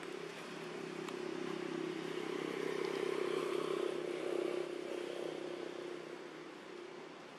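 A motor vehicle's engine running, growing louder to a peak about three to four seconds in and then fading away.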